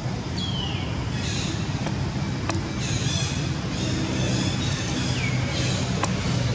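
Outdoor ambience: a steady low engine-like hum, with a short falling high call near the start and another about five seconds in, and harsher, caw-like calls between them.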